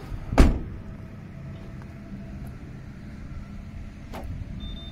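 Renault Mégane estate's rear door pushed shut with one solid thud. A much lighter click follows a little after four seconds in, over a steady low background rumble.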